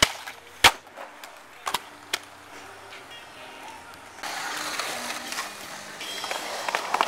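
Skateboard on concrete: a few sharp clacks of the board popping and landing in the first couple of seconds, then the wheels rolling on concrete from about four seconds in.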